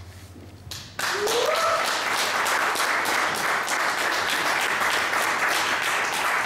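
Audience applauding, breaking out suddenly about a second in after the band's last note dies away, with a short rising whoop from the crowd just after it starts.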